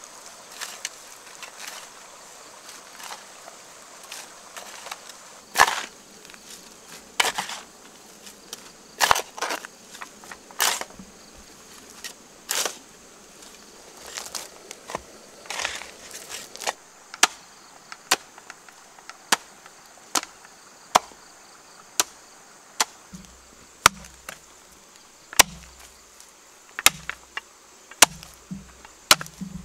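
Hand hoe striking and chopping into damp soil and dead stalks, a sharp hit with each stroke; the strokes are irregular at first, then fall into a steady pace of about one a second. A faint steady insect drone runs underneath.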